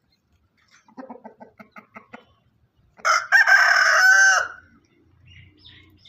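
Rooster giving a quick series of short clucks, then about three seconds in a single loud crow lasting about a second and a half, its pitch dropping at the end.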